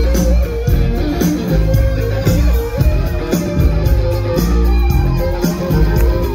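Live band playing loudly, electric guitar to the fore over a heavy bass line and a steady drum beat.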